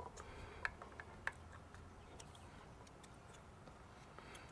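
Faint, scattered small clicks and ticks of plastic parts being handled as a new fuel filter is fitted into the fuel filter housing of a Yamaha 70 hp four-stroke outboard.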